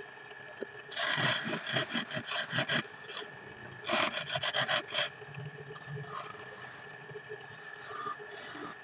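Wooden lamp-base blank spinning on a belt-driven lathe, scraped by hand in two bursts of rapid rasping strokes, about a second in and again around four seconds in. The lathe's electric motor hums steadily underneath.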